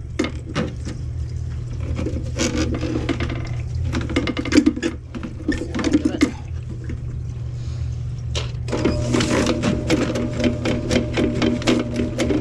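Electric drum drain snake running as its cable is pulled back out of a kitchen sink drain line. The cable ticks and rattles fast and steadily over a low motor hum. About nine seconds in, a steadier, higher hum joins.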